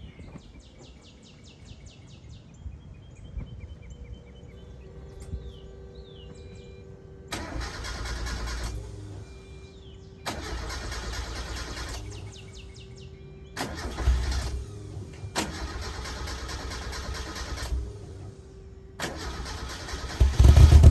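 1990 Mazda Miata's 1.6-litre four-cylinder engine being started after a Seafoam treatment: five bursts of cranking, each lasting one and a half to three seconds with short pauses between them, the last and loudest near the end. Faint ticking comes first.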